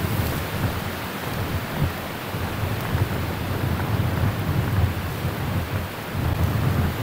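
Strong gusty wind buffeting the microphone: a deep fluttering rumble over a steady rushing hiss, swelling again about six seconds in.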